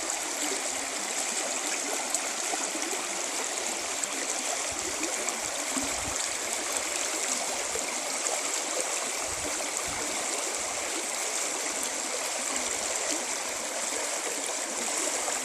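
Creek water running over rocks: a steady, bubbling rush.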